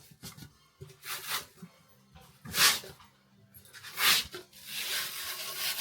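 Hand tools working nails loose from a wooden window frame: a few short scraping, prying strokes, then a longer scrape near the end.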